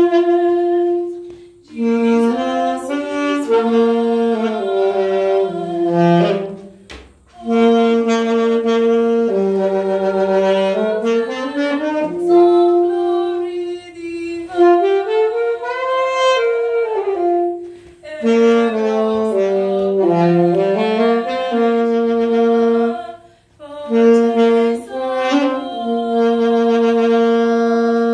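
A woman singing a slow hymn melody alone, without accompaniment: long held notes in phrases of a few seconds, with short breaks for breath between them.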